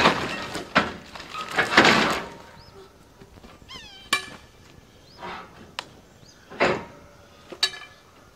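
A heavy pine log being pried over the side of a trailer: two loud knocking, scraping crashes of wood in the first two seconds as it tips and drops to the ground. These are followed by a few sharper single knocks.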